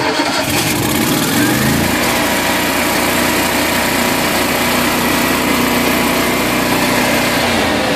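Miller Trailblazer 302 welder-generator's engine cold-starting. It catches, revs up to its high speed of about 3800 RPM and runs loud and steady, then begins to drop back toward its 1400 RPM idle near the end.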